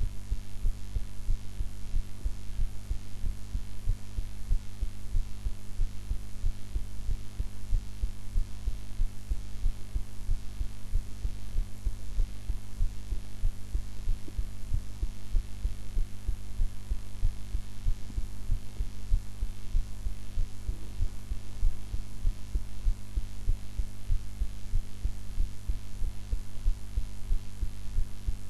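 A woman's heartbeat recorded close up: a steady, regular run of low thuds, with a constant hum underneath.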